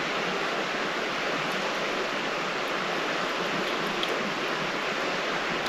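Steady rushing of a fast-flowing river, an even wash of water noise that holds at one level.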